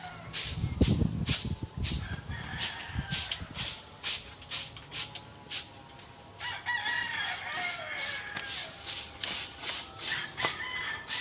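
A rooster crowing about two thirds of the way in, over a steady rhythmic swishing about twice a second.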